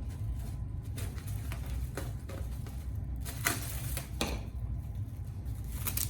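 Scattered light clicks and taps of dishes and containers being handled on a kitchen counter, the firmest about three and a half and four seconds in, over a steady low hum.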